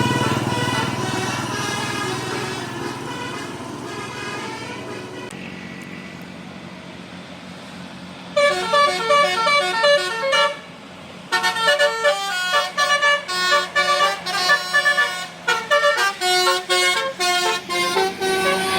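Bus telolet Basuri musical horn playing a tune in quick, short notes at stepping pitches, starting about eight seconds in, with a brief pause partway through. Before that, a bus with its horn tones and low engine rumble fades away over the first few seconds.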